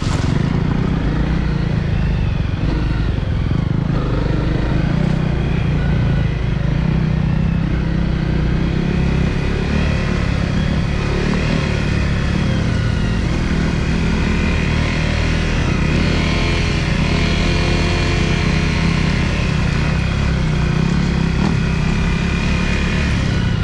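Honda CRF250L's single-cylinder four-stroke engine running at low revs as the dual-sport bike rides slowly along a dirt trail. The revs rise and fall gently a few times around the middle.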